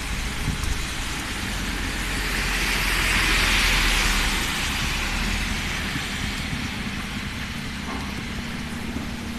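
Typhoon rain and strong wind hissing steadily, with a louder rushing swell that builds and fades about three to four seconds in.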